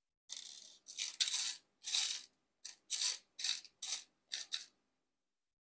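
Amazonite chip beads rattling against each other and the clear plastic box in about nine short bursts as fingers sift through them, stopping just before the last second.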